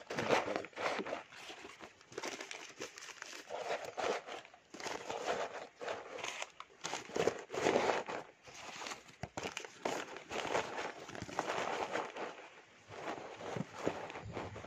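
Packing wrap crinkling and rustling in irregular bursts as hands unwrap it.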